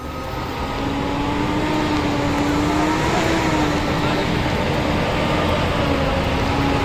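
Tata truck's diesel engine idling: a steady hum with a faint, slightly wavering tone over it.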